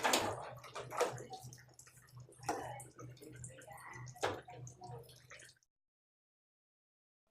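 Water splashing and dripping with irregular knocks from handling parts, over a steady low hum. All sound cuts off suddenly about five and a half seconds in.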